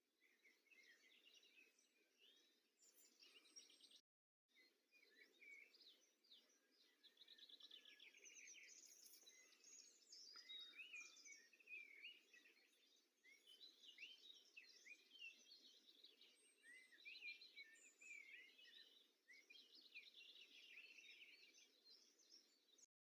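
Faint chorus of several songbirds chirping and trilling over light background hiss; the sound cuts out for a moment about four seconds in.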